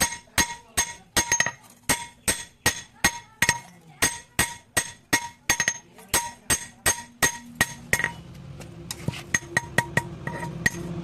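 Hand hammer striking a sickle blade on an anvil at about three blows a second, each blow ringing metallically. About eight seconds in the blows turn into lighter taps and a low hum comes in beneath them.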